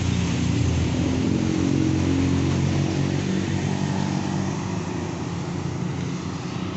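Road traffic, with motorcycle and car engines running as they pass by on the street, a steady hum that eases slightly near the end.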